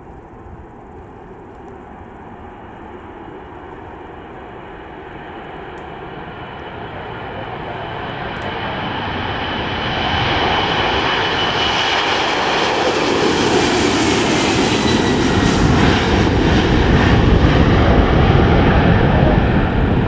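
Boeing 767 twin jet engines at takeoff power during the takeoff roll and liftoff, growing steadily louder as the airliner comes past. A high fan whine drops in pitch as it passes, and it is loudest near the end.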